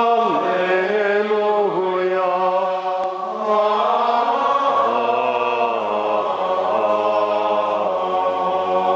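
A choir singing plainchant in a single slow melody line, with lower held notes joining about five seconds in.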